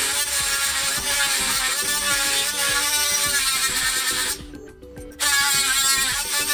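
Ryobi 18V cordless power saw running under load with a worn, nearly toothless blade, straining to cut: one long burst, a stop of under a second past the middle, then a second burst.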